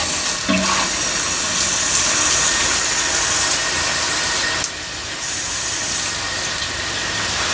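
Steady hiss of water spraying from a Delta IN2ITION shower head onto tile. The spray drops in level briefly about two thirds of the way through, then carries on.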